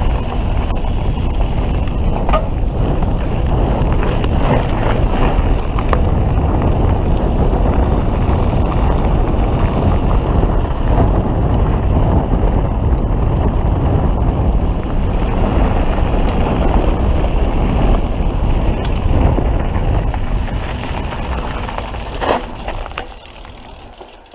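Wind buffeting the camera microphone together with mountain-bike tyres rolling fast over a gravel trail, a steady loud rushing rumble that dies away near the end as the bike slows to a stop.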